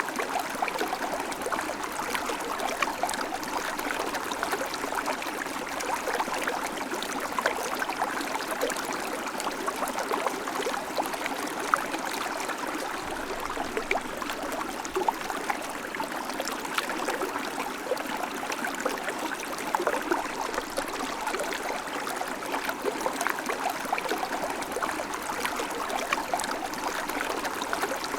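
River water flowing steadily over rocks: a continuous rushing and babbling with many small splashes.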